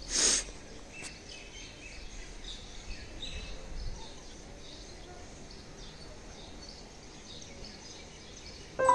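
Open-air ambience with faint, repeated chirps of small birds. A brief rush of noise sweeps across the microphone just after the start, and music comes in right at the end.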